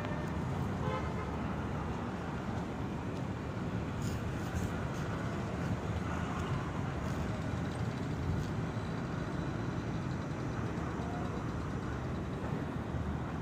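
Steady low outdoor background rumble with no distinct source standing out, and a few faint clicks about four to five seconds in.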